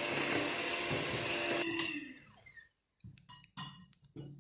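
Electric mixer running steadily while beating eggs and sugar, then switched off about a second and a half in, its whine falling as the motor spins down. A few light knocks follow.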